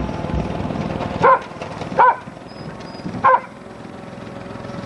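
A dog barking: three short, sharp barks about a second apart.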